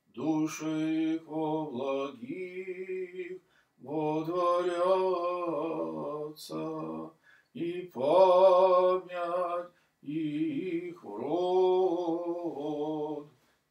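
A man's voice chanting a slow Orthodox memorial chant in drawn-out phrases, with short pauses for breath between them.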